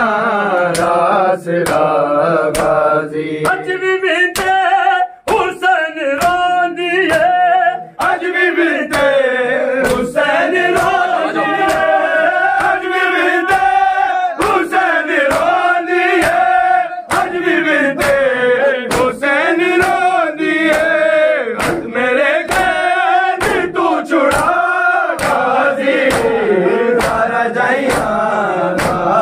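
Men's voices chanting a nauha, the Shia Muharram lament, together in a steady rhythm, over a regular beat of sharp slaps typical of matam, hands striking chests in time with the lament.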